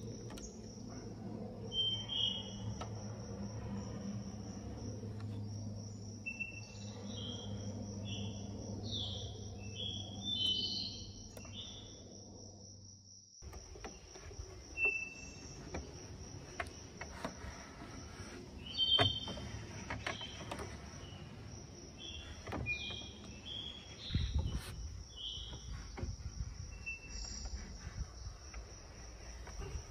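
A steady high insect trill with scattered short bird chirps. A low hum underneath stops abruptly about 13 seconds in, and light rubbing and handling noises follow.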